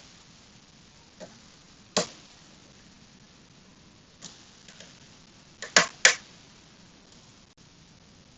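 Irregular sharp metallic clicks of a hook pick and tension wrench working the spool pins inside an ASSA Max+ lock cylinder under heavy tension. Among the scattered faint clicks, the loudest comes about two seconds in and a close pair about six seconds in.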